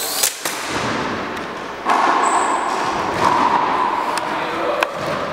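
Small quadcopter knocking onto a hardwood gym floor: a few sharp knocks, the first near the start, and a steady rushing noise from about two seconds in.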